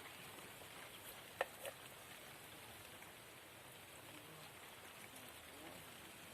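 Faint steady hiss of light rain, with two short sharp clicks about a second and a half in.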